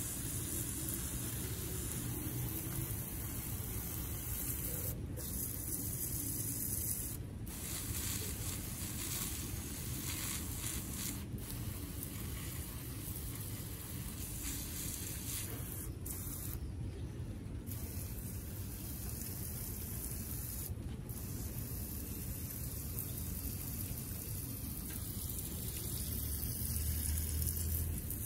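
Water hissing steadily from a hose watering wand's spray nozzle onto potted succulents and their gravel, broken by several brief pauses.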